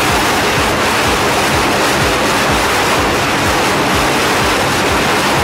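Twin jet engines of an F/A-18 running at high power on a carrier catapult before launch, a loud steady rushing roar.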